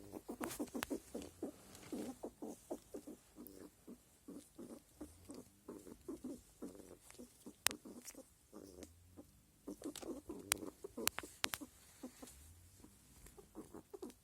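Male squirrel in rut making grunting calls: rapid runs of short, low grunts, several a second, broken by brief pauses, with a few sharp clicks among them.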